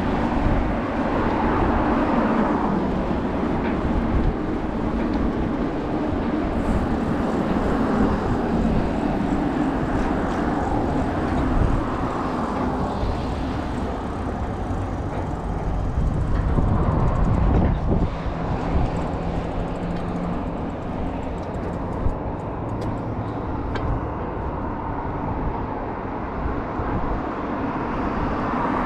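Wind buffeting the microphone of a camera on a moving bicycle, a steady low rumble, with road traffic passing on the road alongside.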